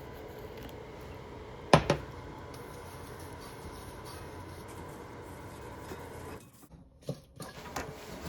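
Faint kitchen handling noise over a steady low hiss, with one sharp click about two seconds in and a few light clicks near the end.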